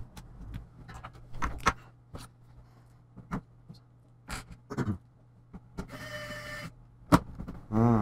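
Scattered light clicks and taps of screws and a tool against the plastic back cover of an Acer Aspire Z3-600 all-in-one as the screws are set back in, with a short whir about six seconds in.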